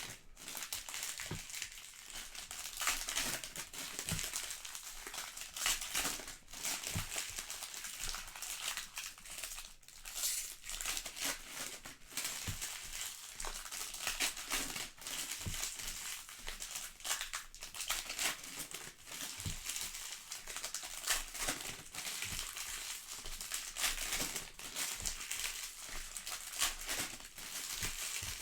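Plastic trading-card pack wrappers crinkling and rustling as packs are handled and opened, with many small clicks and crackles.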